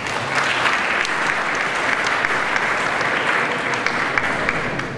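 Large seated audience applauding: dense, steady clapping of many hands.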